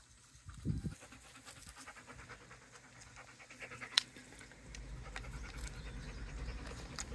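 Rough collie panting quickly and rhythmically, with one sharp click about four seconds in.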